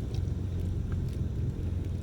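Steady low rumble aboard a small boat, with wind buffeting the microphone.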